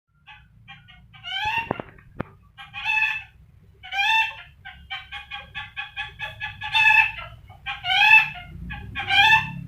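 Rainbow lorikeet mimicking a hen's cackle: a string of short clucks broken by louder, drawn-out cackling notes, the loudest of them near the end.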